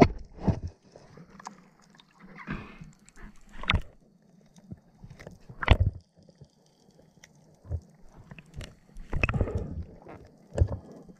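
Underwater sound from a camera: irregular muffled knocks and swishes from movement in the water, with faint scattered clicks over a low steady hum.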